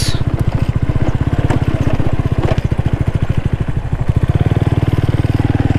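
Bajaj Pulsar 135's single-cylinder engine running steadily under way, an even, rapid beat of firing pulses.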